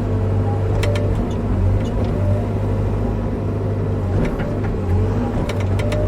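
Bobcat E55 mini excavator's diesel engine running steadily as the machine works. A few sharp clicks and knocks come about a second in and again near the end.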